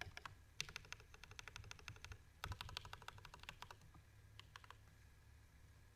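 Typing on an Idobao ID80 mechanical keyboard with Gateron Black Ink V2 linear switches (lubed with Krytox 205g0 and filmed), lubed Durock screw-in stabilizers and case foam. Several bursts of rapid keystrokes, then a few single presses about four and a half seconds in.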